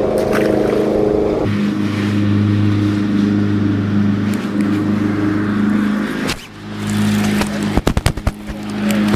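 Bass boat's electric trolling motor running with a steady hum, its pitch shifting about a second and a half in as the speed changes. It dips briefly past the six-second mark, and a quick run of sharp knocks follows near the end.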